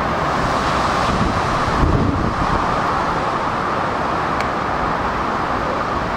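Metro-North electric multiple-unit commuter train running away along the track: a steady rumble and hiss of wheels on rail and traction equipment, with a brief low swell about two seconds in.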